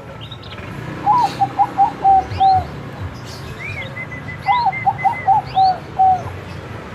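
Bangkok-type perkutut (zebra dove) cooing: two phrases of several quick staccato notes, each ending in a longer held note, a couple of seconds apart. Fainter high chirps from other small birds sound in the background.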